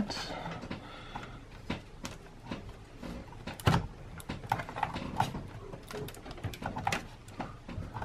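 Scattered faint clicks, scrapes and knocks of a GTX 1070 graphics card being handled and seated into a motherboard's PCIe slot, with one louder knock a little before halfway.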